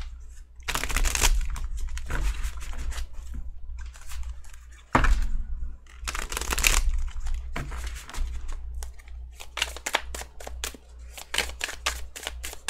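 A tarot deck being shuffled by hand: rustling swishes of cards sliding together, a sharp knock about five seconds in, and a fast run of card clicks near the end.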